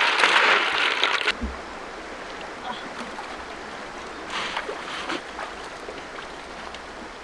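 Water sloshing and snail shells clattering as hands scrub a basin of snails, cutting off suddenly about a second in. Then the quieter steady flow of a shallow river, with a few splashes around the middle.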